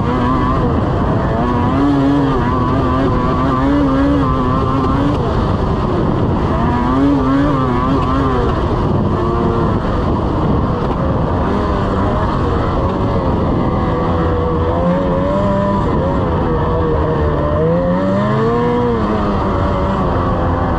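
Lynx RS 600 snowmobile engine running under way along the trail, its pitch wavering with the throttle, with a rise and fall in revs near the end.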